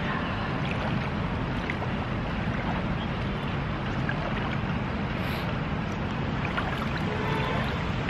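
Steady rush of shallow river water flowing over rocks, with a constant low rumble.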